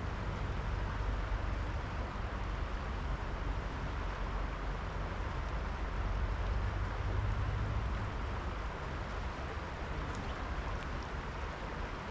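Steady rushing of flowing river water with a low rumble, as heard while wading in the current.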